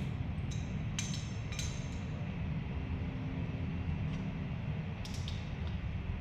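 A few light clinks and clicks, in a short group about a second in and again about five seconds in, over a steady low rumble.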